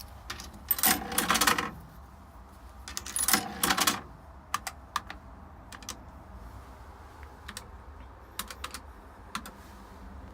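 Payphone keypad buttons pressed one at a time while dialling, about a dozen separate clicks, after two short bursts of clattering in the first few seconds.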